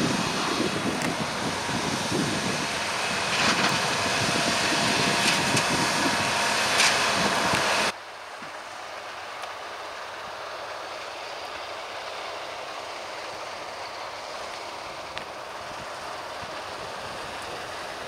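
Fendt Ideal 9T combine harvester running steadily, with a Fendt 720 Vario tractor and trailer alongside and wind buffeting the microphone. About eight seconds in, the sound cuts abruptly to a quieter, steady drone of the combine cutting barley.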